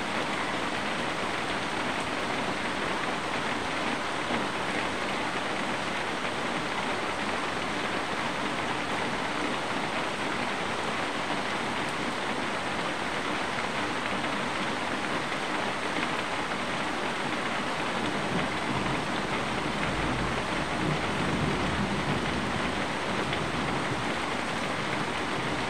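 Steady rain falling, a constant even hiss. About three quarters of the way through, a low rumble swells and fades beneath it.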